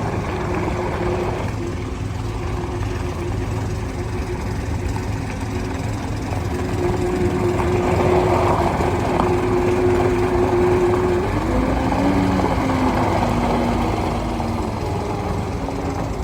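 John Deere 332G skid steer loader's diesel engine running, with a steady whine over it. It gets louder for several seconds midway, while the whine steps to a different pitch, then eases back near the end.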